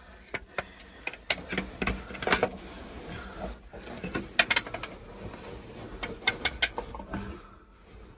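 Scraping and knocking of a person climbing down through a narrow rock crevice: boots, hands and clothing catch and scuff against the stone in irregular clusters of sharp clicks and knocks.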